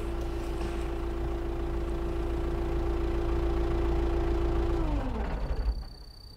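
A motor vehicle passing on a wet road: a low engine rumble and tyre hiss with a steady tone that drops in pitch as it goes by, about five seconds in. The sound then falls away abruptly.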